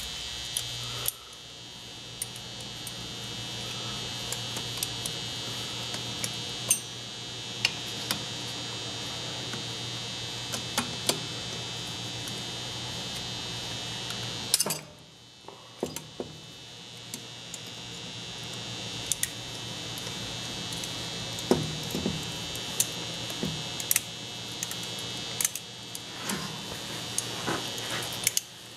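Scattered sharp metal clicks and taps of hand tools working on the aluminium housing of an old Hutchens sander being taken apart, over a steady high-pitched whine and low hum.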